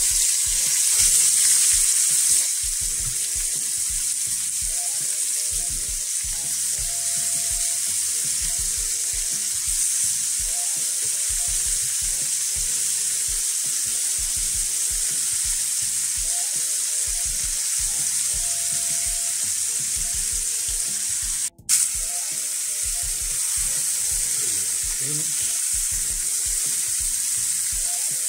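Oxtail pieces sizzling steadily as they brown in hot oil in a pot, loudest in the first couple of seconds. The sound cuts out for an instant about three-quarters of the way through.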